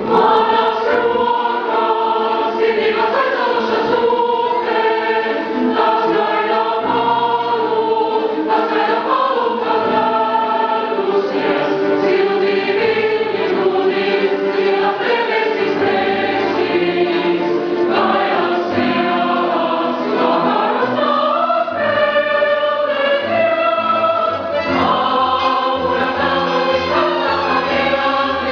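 Choir singing in held notes that move slowly from one pitch to the next without pause.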